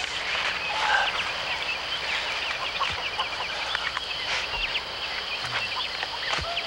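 Birds chirping in many quick, short calls, one after another.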